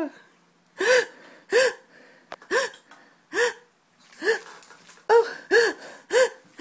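A woman making a run of about eight short, strained gasps, roughly one a second, each rising and falling in pitch. It is a mock strangled, breathless sound used as the cue that her service dog is trained to answer.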